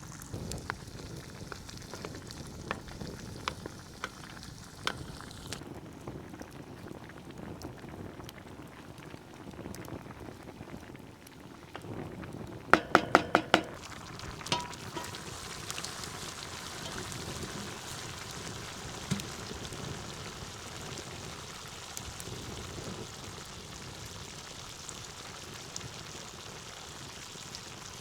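Food sizzling steadily in a frying pan, with scattered light ticks. About halfway through comes a quick run of about five ringing metallic clinks, the loudest sounds here.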